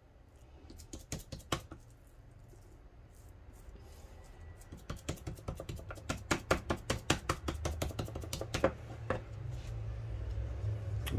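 Hands patting and shaping a sticky minced-meat cutlet: a run of quick soft slaps and taps, fastest between about five and nine seconds in.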